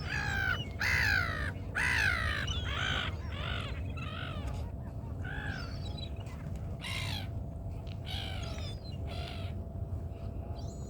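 Gulls squawking around thrown bird seed: a run of harsh calls, each rising and falling in pitch. The calls come thick and fast in the first few seconds, then more spaced out.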